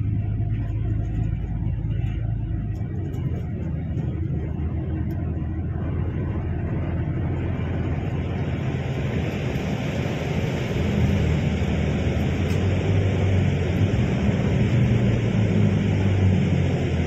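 Steady low rumble of a car on the move, with a hum near the bottom and a rushing road-and-wind noise that grows in from about halfway through.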